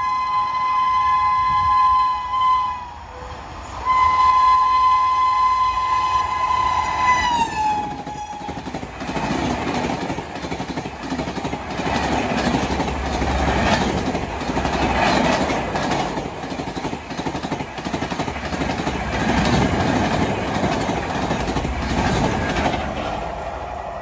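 A WAP-7 electric locomotive's horn sounds two long blasts. The second blast drops in pitch as the locomotive rushes past. Then the Humsafar Express coaches pass at high speed with a loud rumble and rhythmic wheel clatter that starts to fade near the end.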